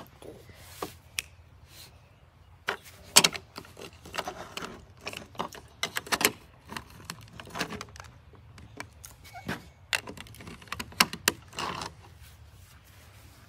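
Chunky plastic building-block toy car pieces clicking and knocking as they are pressed together and handled on a plastic table: an irregular string of short clicks.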